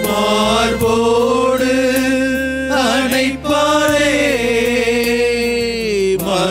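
A voice singing a slow Tamil devotional hymn in long held notes over instrumental accompaniment.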